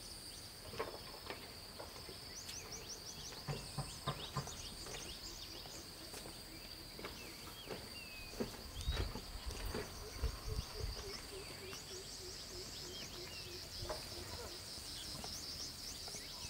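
Outdoor ambience dominated by a steady high-pitched insect drone, with scattered bird chirps, a few clicks and knocks, and some low thumps about nine to ten seconds in.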